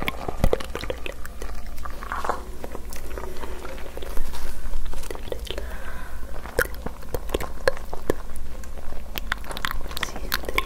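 Close-miked ASMR mouth and hand sounds: an irregular run of small wet clicks and crackles, with a louder burst about four seconds in.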